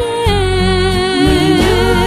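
Music: a Thai song with one long held note that wavers in vibrato, over a steady low accompaniment.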